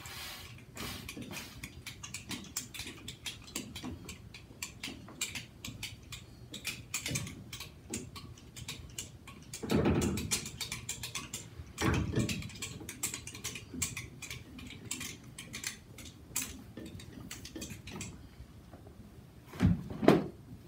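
Etching press being cranked, the bed carrying the plate and felt blankets under the roller, with a steady patter of small mechanical clicks and a couple of heavier thuds around the middle. Near the end comes the loudest thump, with rustling, as the felt blankets are lifted back off the bed.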